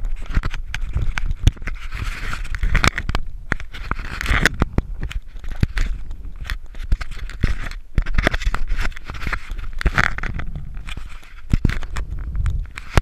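Irregular scraping, rubbing and clicking against a body-worn action camera's housing, with low rumbling, as the wading angler moves and handles his fly line.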